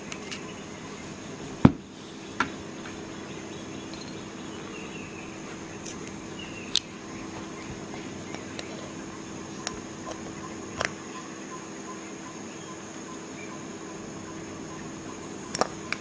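Scattered sharp metallic clicks and taps from a stainless-steel Leatherman Expanse multi-tool being handled, about six in all, the loudest a thump a little under two seconds in and a quick double click near the end. Under them runs a steady background hum and hiss.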